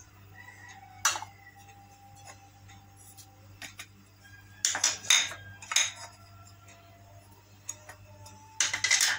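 Small ceramic dishes and a spoon clinking and tapping against a cut-glass mixing bowl as spices are tipped in: one sharp clink about a second in, a quick run of taps midway, and another run near the end.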